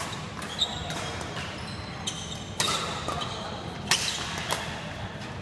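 Badminton rally: rackets strike the shuttlecock four times, one to two seconds apart, each a sharp crack. Short high squeaks of court shoes on the floor come between the hits.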